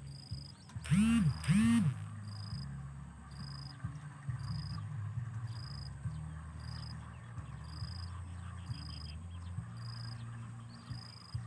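Animal calls: a steady low chorus with a short high chirp repeating about every three-quarters of a second. About a second in, two loud croaks come close together, each rising then falling in pitch.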